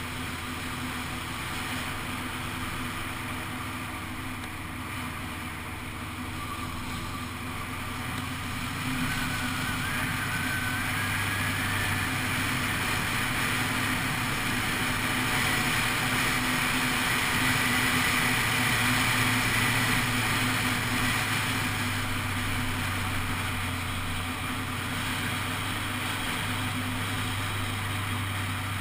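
Honda CBF600 SA motorcycle's inline-four engine running steadily on the move, under a wash of wind and road noise. The noise swells about a third of the way in and eases a little near the end.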